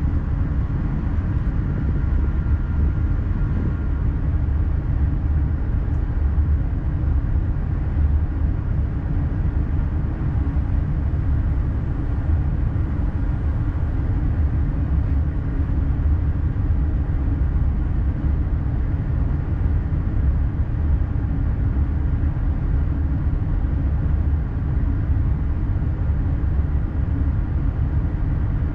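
X40 double-deck electric multiple unit running along the line, heard from inside the driver's cab as a steady low rumble of wheels and running gear. A faint high tone sits over it for the first few seconds.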